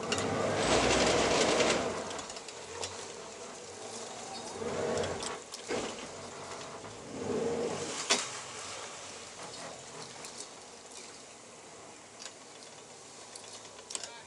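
Yamaha outboard engines running under a patrol boat's helm, with wind rushing on the body-worn microphone. The rush is loudest in the first two seconds, then settles to a lower steady noise with softer swells.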